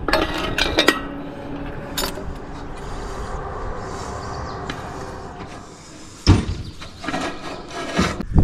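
Metal hardware and tools clinking and clicking: several sharp clicks in the first second and another about two seconds in. About six seconds in comes a louder, deep burst of noise.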